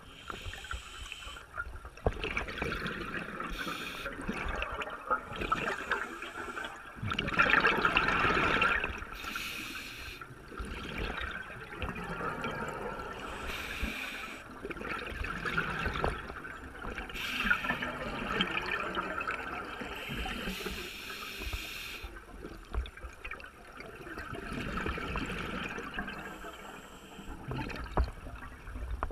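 Scuba diver breathing underwater. Hissing inhales through the regulator alternate every few seconds with gurgling bursts of exhaled bubbles, and the loudest bubble burst comes about seven to nine seconds in.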